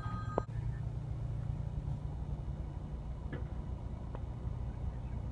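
Steady low rumble of a car's running engine and road noise heard inside the cabin while creeping along in traffic. A faint high tone cuts off abruptly about half a second in, and two faint ticks come later.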